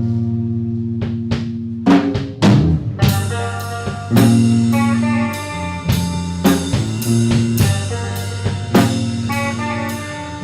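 Rock band music: drum kit and sustained bass and guitar notes, the drums opening up with cymbals about three seconds in.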